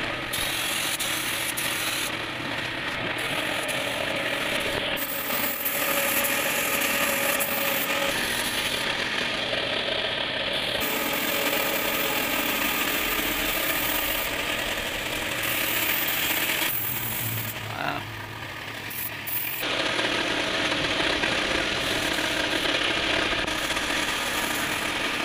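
Gravity-feed air spray gun hissing as it sprays finish onto wood, over the steady run of the air compressor that feeds it. The spray hiss stops for about two seconds roughly two-thirds of the way through, then resumes.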